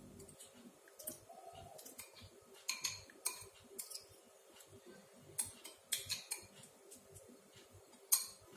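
Spoon clinking and scraping against a glass bowl as soaked pearl-millet porridge is scraped out of it into a pot of milk. There are a dozen or so sharp taps in small clusters, with the loudest clink near the end.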